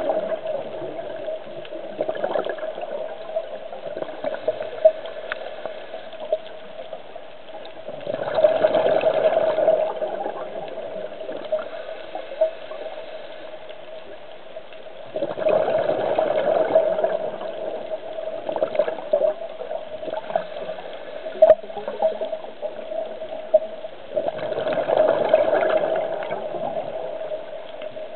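Scuba diver's exhaled bubbles from a regulator: a bubbling rush about every eight seconds, each lasting about two seconds. A steady high hum and scattered faint clicks run underneath.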